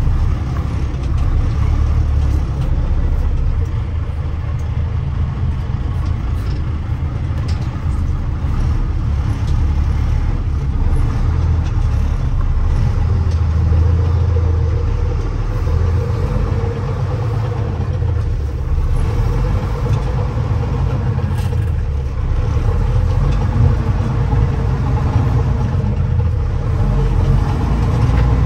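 The 10.5-litre inline-six diesel of a 1998 Ford LT9513 dump truck, heard from inside the cab as the truck drives slowly along a gravel road. The engine runs at a steady, deep drone, with a steady hum that joins in about halfway through.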